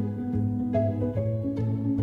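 Background instrumental music, a steady run of pitched notes changing about twice a second.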